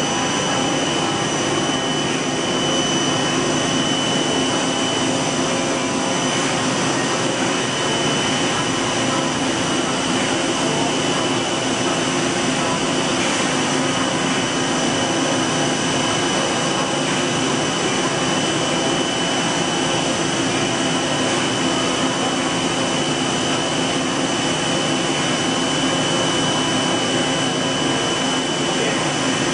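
Mazak Integrex-200IV ST CNC turning center running under power: a steady mechanical hum with a constant high-pitched whine, with no change throughout.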